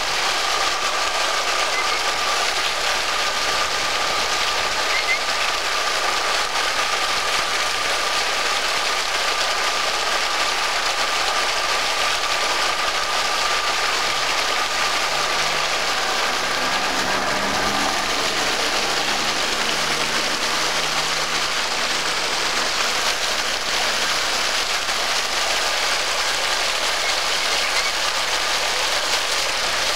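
An open fire hydrant gushing a full jet of water onto the street, a loud, steady rush of water. A faint high steady tone sits under the rush through the first half.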